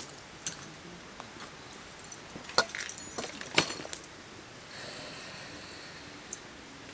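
Tableware clinking and clattering as it is handled while eating. A few light clicks, then a busier clatter in the middle with two sharp knocks, and one more click near the end.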